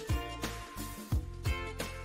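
Background music with a drum beat: sustained instrumental notes over a repeated deep bass-drum thump.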